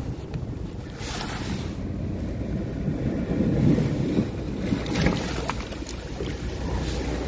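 Wind buffeting the microphone over sea waves washing on shore rocks, a steady low rumble that swells for a moment about halfway through.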